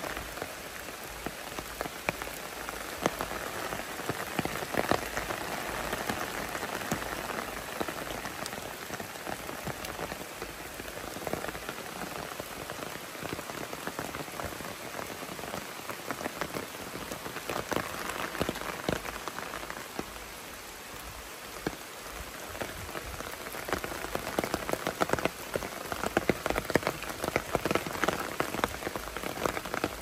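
Steady rain falling through the forest, with many single drops ticking close by.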